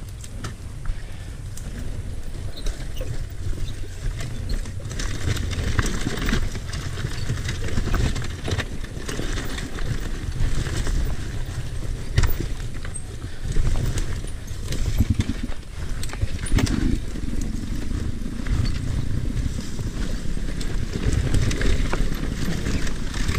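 Sherco 300 SE Factory two-stroke dirt bike engine running at low revs while being ridden through rough bush, with many irregular knocks and clatter.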